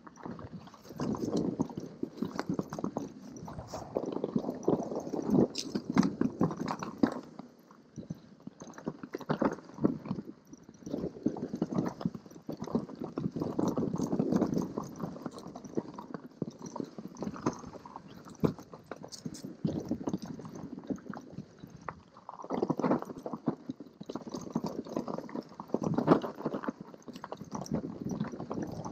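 Mountain bike tyres crunching over snow on a singletrack descent, with scattered clicks and knocks from the bike over bumps. The crunching comes in louder surges and eases off in between.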